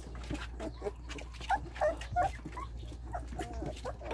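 Young German Shepherd x Belgian Shepherd puppies, about 18 days old, giving short squeaky whimpers, several in a row, with faint clicks between them.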